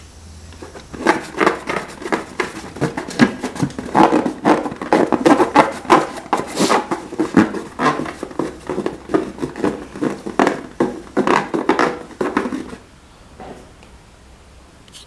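Slime being squished and mixed by hand: a dense, irregular run of wet squelching clicks and pops that starts about a second in and stops near the end.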